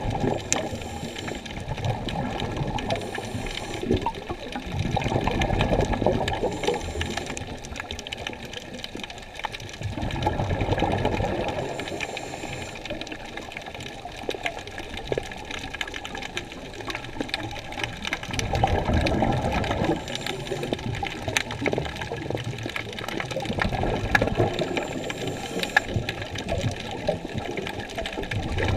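Muffled underwater rush of moving seawater, swelling and fading about five times, with scattered small clicks and crackles.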